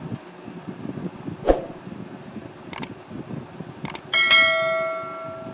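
Sound effects of an animated subscribe-button overlay: a thump about a second and a half in, two short clicks, then a bright bell chime about four seconds in that rings out and fades.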